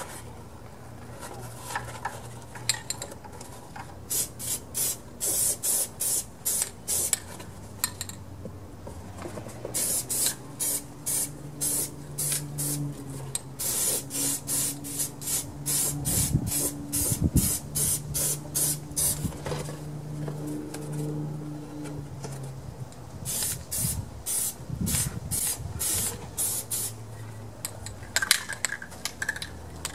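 Aerosol spray-paint can being sprayed in many short bursts, with a few longer sprays about halfway through, laying on a second coat of paint. A faint low hum runs beneath.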